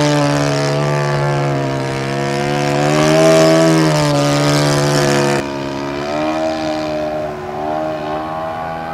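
Single-cylinder Saito FA-120 four-stroke glow engine of an RC Stampe biplane running in flight, set a little rich, its pitch rising and falling as the plane manoeuvres overhead. About five seconds in the sound turns suddenly quieter and duller but keeps running.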